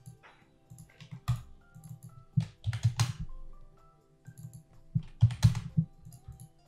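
Computer keyboard typing and mouse clicks in short clusters, about a second in, around two and a half to three seconds in, and again around five seconds in, over soft background music.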